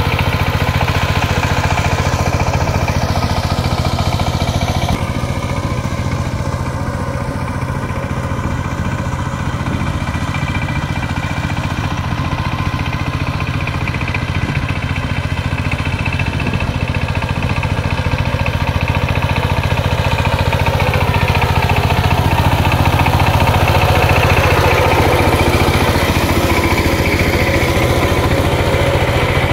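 Saifing 12 hp single-cylinder diesel engine of a two-wheel power tiller running steadily under load as its rotary tiller churns dry rice-stubble soil. The engine's pitch shifts and it grows louder about twenty seconds in.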